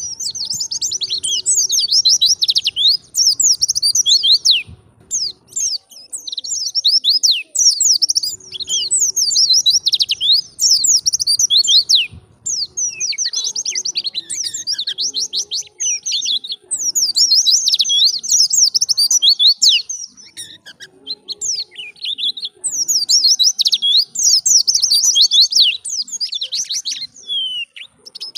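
White-eye (pleci) singing: long runs of rapid, high twittering notes in several phrases, broken by brief pauses.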